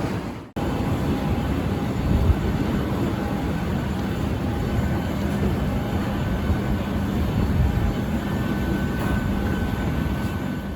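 Steady noise of a Boeing 737-800 during boarding: a low rumble with faint steady whines. It drops out briefly just after the start and again at the end, where the recording is cut.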